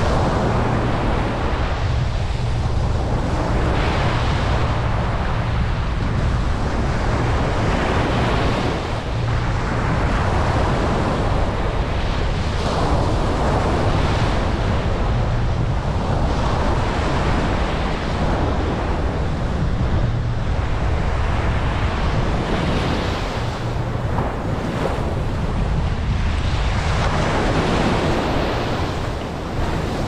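Ocean surf breaking and washing up a sandy beach, surging every few seconds, over a steady low rumble of wind on the microphone.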